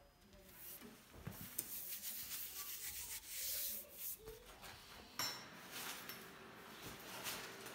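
White oak runner sliding back and forth in a bandsaw table's metal miter slot, wood rubbing against metal in several scraping strokes, with a sharp click a little after five seconds in.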